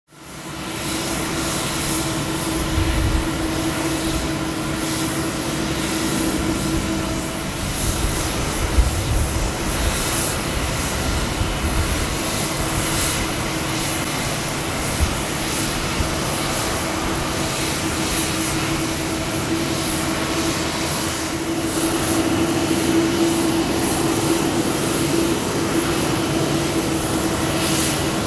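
Jet engines of a taxiing Boeing 787-8 (GE GEnx-1B turbofans) at idle thrust: a steady hum with a held droning tone and a thin high whine. The sound swells somewhat in the last few seconds as a second jet, a Boeing 737, taxis past closer by.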